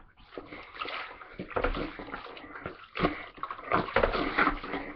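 A Mobile Washer hand plunger being worked up and down in a 5-gallon bucket of soapy water and clothes, the water sloshing and splashing in uneven strokes that grow stronger after about a second and a half.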